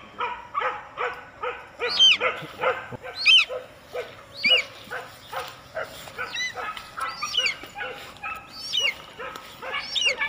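Hunting dogs barking rapidly, about three barks a second, broken every second or so by a sharp, high yelp that rises in pitch: dogs giving tongue while on the trail of quarry.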